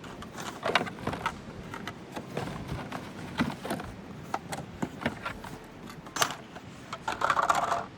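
Hard plastic parts and cardboard packing being handled and lifted out of a box: scattered knocks and rustling, with a short, dense rustle near the end.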